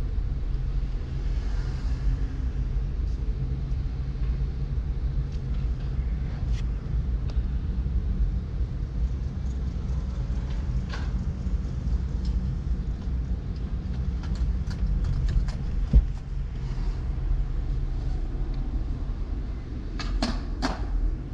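Car being driven: a steady low road-and-engine rumble, with scattered faint clicks, a single thump about sixteen seconds in, and a few sharp clicks near the end.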